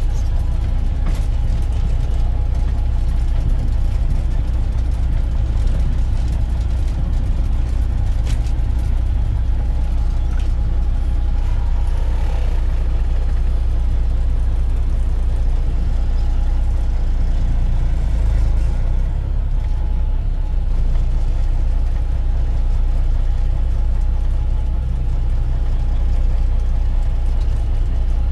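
Detroit Diesel Series 60 12.7-litre engine of a Kenworth W900 dump truck running steadily under way, heard from inside the cab as a constant low rumble. A short falling whine sounds about twelve seconds in.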